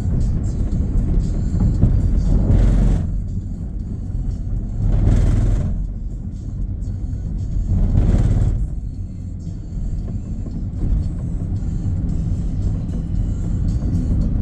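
Low road and engine rumble of a moving car, heard from inside the cabin, with three brief rushing swells in the first half. Music plays underneath.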